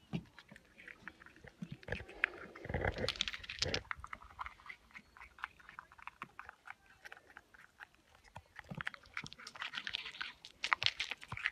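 Ground squirrel gnawing and crunching nuts, a rapid run of small sharp cracks and chewing noises, with a couple of dull bumps about three seconds in.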